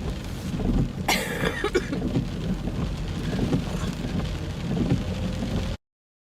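Rain on a car's roof and windscreen heard from inside the cabin, a steady hiss over the car's low rumble, with a brief louder rush about a second in. The sound cuts off abruptly to silence shortly before the end.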